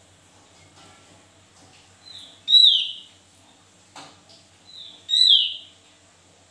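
Caged songbird giving two loud, falling whistled calls about two and a half seconds apart, each led in by a softer note.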